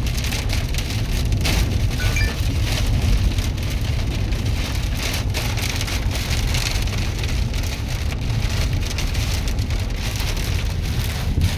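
Heavy rain from a derecho storm pelting a vehicle, with a constant low rumble of wind.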